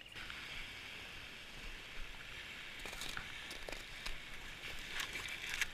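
Steady hiss of lake water washing against an icy, slushy shoreline, with a few faint clicks about three seconds in and again near the end.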